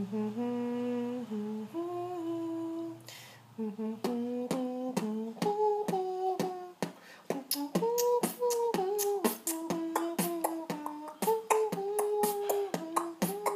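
Humming beatbox by one man: a hummed melody, held over a low drone for the first few seconds, then carried on over mouth-made percussive clicks. The clicks join about four seconds in and come denser toward the end.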